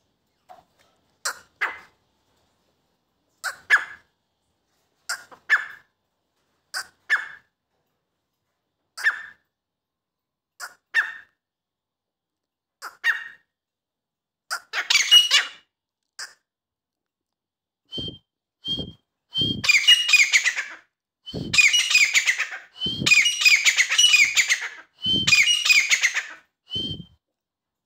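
A bird calling. At first it gives short calls about every two seconds. From about two-thirds in the calls turn louder, longer and harsher and come in quick succession, several led by a short whistled note, with a dull thump under some of them.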